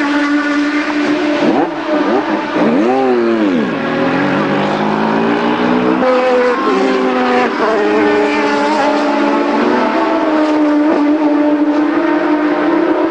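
Formula One car engines running in the pit lane, holding steady notes, with several quick throttle blips rising and falling about two to four seconds in.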